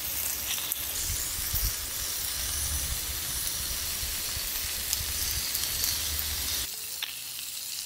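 Pork-wrapped shiitake rolls sizzling steadily on a griddle plate over a portable gas stove, a little quieter near the end.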